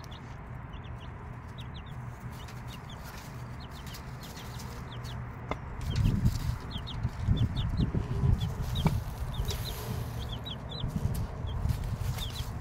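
Six-day-old chicks peeping, a steady scatter of short high cheeps, joined about halfway through by a mother hen's low clucking, which is louder.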